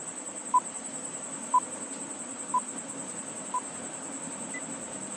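Countdown timer beeps: four short, high beeps a second apart, then a fifth, higher beep, over a faint steady hiss.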